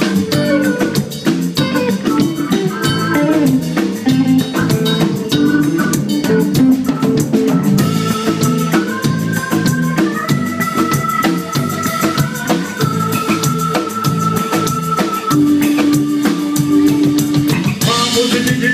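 Live band playing an instrumental passage: drum kit, electric guitars and keyboards, with long held lead notes through the middle.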